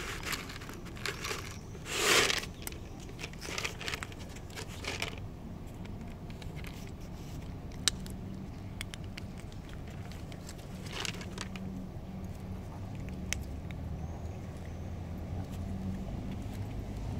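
Dry cat kibble rattling out of a plastic bottle onto brick in the first two seconds or so, then a cat crunching the dry kibble in many short, scattered clicks. A low hum underneath grows stronger in the second half.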